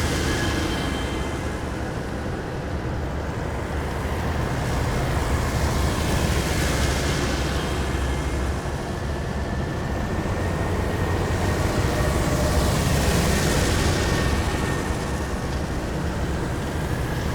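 A column of heavy military vehicles driving past one after another, with a steady deep engine rumble and a rush of road noise that swells and fades as each vehicle passes, about every six or seven seconds.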